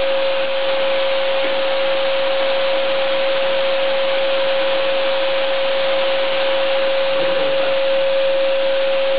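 Vacuum cleaner running steadily: a constant rush of air with an unbroken motor whine.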